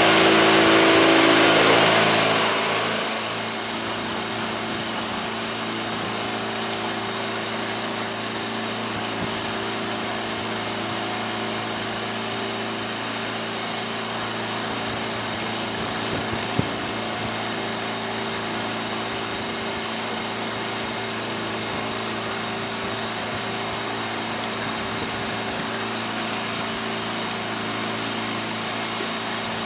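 A narrowboat's inboard diesel engine running steadily at cruising speed. It is louder and echoing for the first two seconds or so while the boat passes out from under a bridge arch, then settles to an even chug. There is a single short knock about sixteen seconds in.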